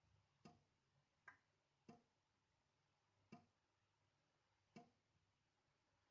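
Water drops falling one at a time from a dripping tap into a sink: five faint plinks at uneven intervals.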